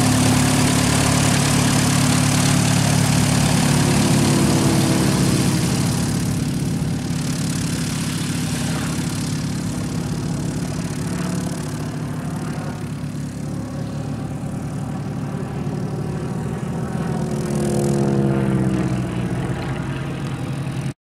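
Bücker Bü 180 Student's 60 hp Walter Mikron inverted inline engine and propeller running steadily at low power as the plane taxis on grass. The engine grows fainter about six seconds in as the plane moves away, then swells briefly near the end.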